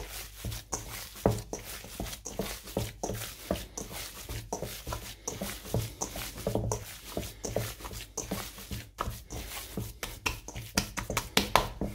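Hands kneading and squeezing raw ground beef mixed with soaked bread in a stainless steel bowl: a fast, irregular run of short squelching sounds as the mixture is worked until even.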